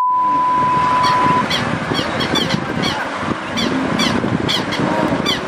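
A steady test-tone beep of the kind that goes with television colour bars, over a hiss; it cuts off about a second and a half in. A hiss follows, with a run of short high chirps falling in pitch, about two a second.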